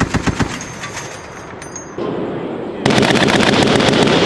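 M250 6.8mm machine gun firing on full automatic: a burst of rapid shots ends about half a second in and echoes away. About three seconds in, a longer, louder burst begins.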